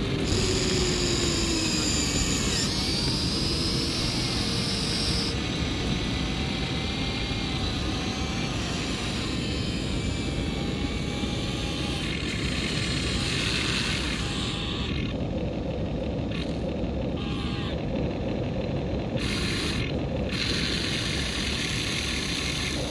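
Electric motors of a Huina remote-control excavator whining as its arm, bucket and upper body move, the pitch gliding up and down as each motion starts and stops, over a steady hiss of surf and wind.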